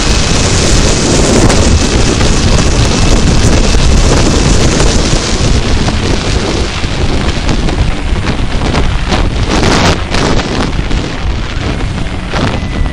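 Wind rushing over the microphone of a motorcycle-mounted camera while the bike rides along at road speed, with stronger gusts near the end.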